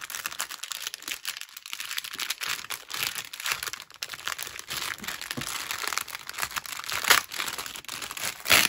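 Clear plastic wrap crinkling and tearing as it is peeled off an album by hand: a continuous irregular crackle, with a couple of louder rips near the end.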